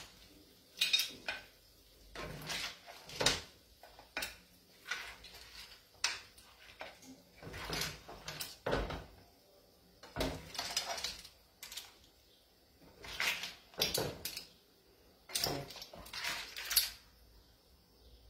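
A spoon scraping and clinking against a frying pan and a serving plate as gnocchi are dished up: short, irregular scrapes and clinks with pauses between.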